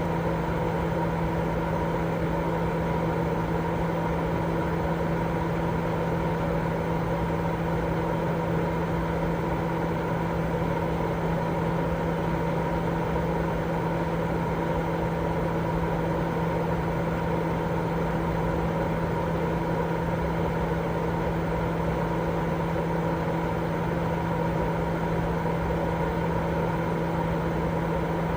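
Continuous white noise for lulling a baby to sleep: an even, unbroken rush, deep rather than hissy, with a steady low hum running under it.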